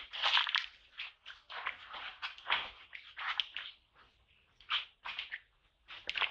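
Irregular rustling and crunching of dry leaves and grass underfoot, several short crackly steps a second.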